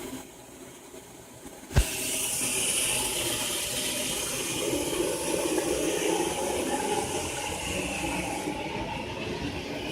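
Running water rushing and hissing, starting just after a sharp knock about two seconds in and then going on steadily.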